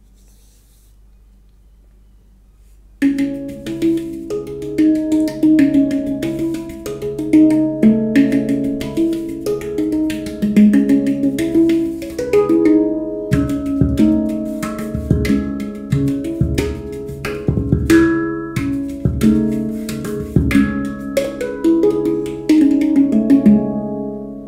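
A Sibiria Sound Sculptures PantaGongS handpan played with the hands: after a quiet pause, a quick run of struck, ringing steel notes starts about three seconds in. Deep low strikes join about halfway through, and the notes ring down near the end.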